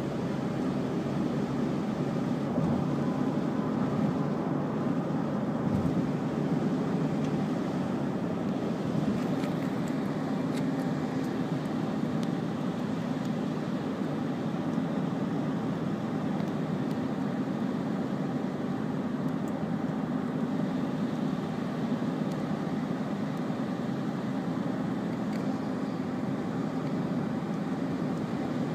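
Steady engine and road drone of a car driving, heard from inside the cabin.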